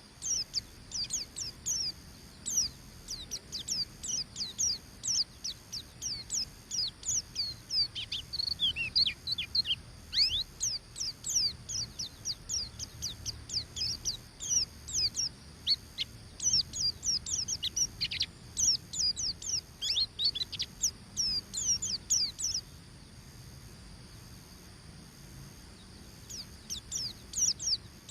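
A white-eye (pleci buxtoni) singing its rapid 'ngeriwik' twitter: a fast run of short, high, downward-slurred chips. The song breaks off about three-quarters of the way through and starts again near the end.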